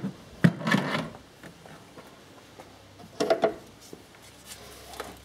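Handling noise of hard tools and parts: a sharp click at the start, another click about half a second in running into a short rattle, and a second burst of clattering a little after three seconds in.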